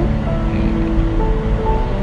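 Background music with slow, held notes over a low rumbling wash.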